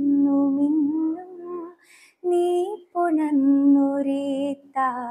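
A young woman singing a slow Malayalam lullaby unaccompanied. She holds long notes with a slight waver and takes short breaths between phrases.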